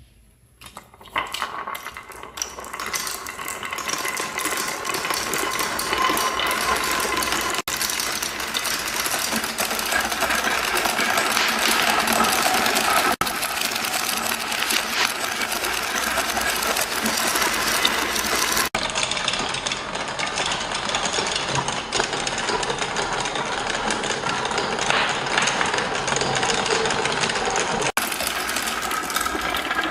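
Many marbles rolling and clattering down a wooden marble run track in a dense, continuous rattle that builds up over the first couple of seconds and breaks off and resumes abruptly several times.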